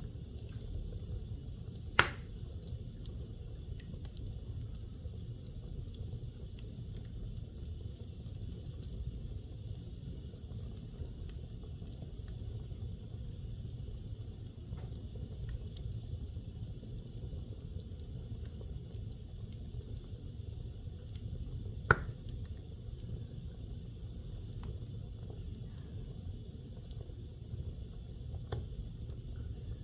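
Wood fire burning in a fireplace: a steady low rumble and hiss with small scattered crackles. Two sharp loud pops stand out, one about two seconds in and one about twenty seconds later.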